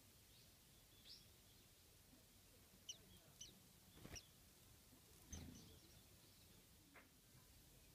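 Faint, short high-pitched calls of Japanese white-eyes, a few scattered chirps, with a sharp knock about four seconds in.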